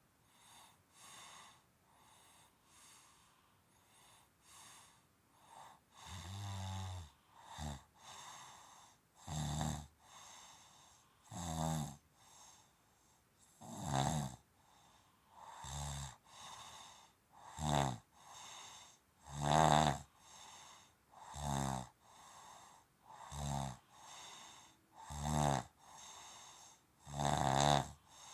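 Snoring: soft, faint breathing at first, then from about six seconds in a snore roughly every two seconds, with quieter breaths in between and some snores much louder than others.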